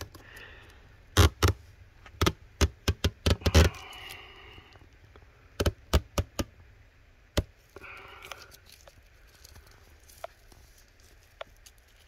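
Hands handling the opened iMac's frame while stripping its display adhesive: sharp knocks and taps, a quick run of about eight in the first few seconds and a few more around the middle, with soft scraping in between.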